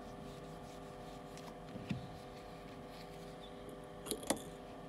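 Faint rubbing of a lint-free cloth wiped over an LCD polariser, over a steady electrical hum. A soft knock comes about two seconds in and two quick clicks near the end.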